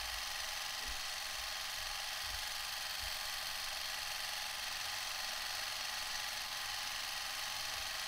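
Vintage handheld film camera running: a steady motor whir with an even hiss.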